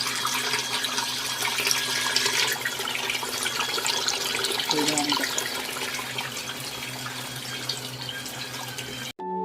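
Water churning and splashing in a bucket with a steady low motor hum under it, as a small portable turbine washing machine runs. It cuts off sharply near the end and music takes over.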